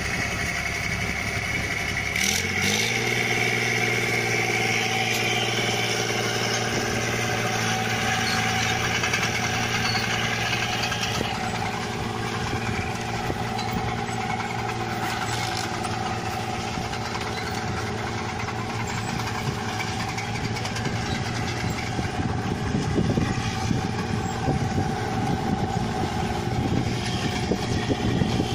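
Rice combine harvester's diesel engine running steadily under load while cutting paddy. The engine speeds up about two seconds in, then holds an even pitch.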